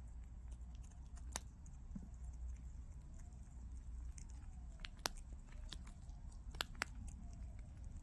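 Prairie dog nibbling and crunching a dry, cracker-like snack held in its paws: faint, scattered crunchy clicks, a few of them sharper, over a low steady hum.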